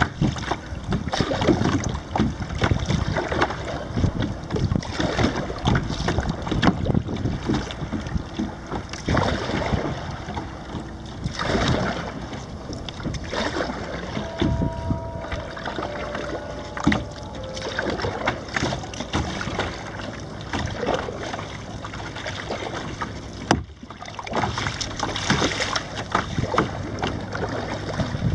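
Water splashing and sloshing irregularly against a plastic sit-on-top kayak's hull as it is paddled across choppy sea.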